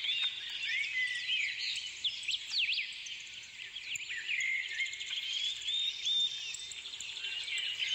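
Many small birds chirping and calling at once: a dense, overlapping run of quick high chirps and short whistles.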